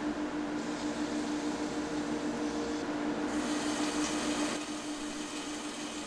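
Laboratory particle-size analysis equipment running: the sample stirrer and peristaltic pump motors give a steady hum with a constant low tone.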